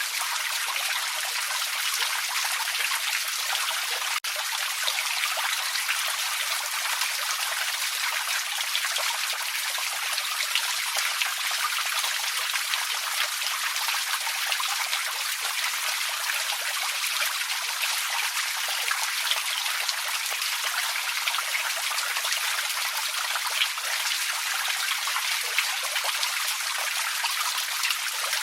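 Small creek trickling and splashing over stones in a steady, unbroken water rush.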